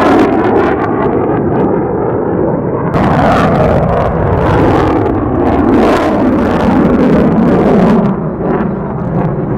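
Fighter jet engine noise from an F-16 in a banking pass, its high end dulling as it moves off. About three seconds in it cuts to the louder, crackling jet noise of an F-22 Raptor climbing.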